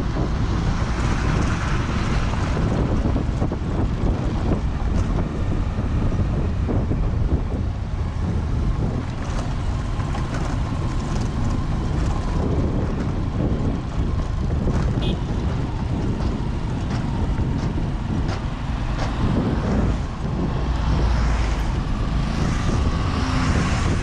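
Wind rushing over the microphone of a moving vehicle, with engine and road noise from the rough dirt road underneath.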